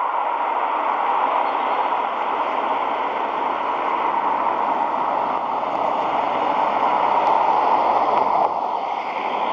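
Pressurised gas rushing from a cylinder through a hose into a high-altitude latex balloon during inflation: a steady hiss that eases slightly near the end.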